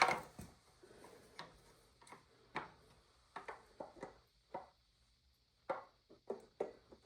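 Irregular light clicks and knocks of a chainsaw's chain and guide bar being handled and fitted, with a sharper knock right at the start and a brief pause before the last few clicks.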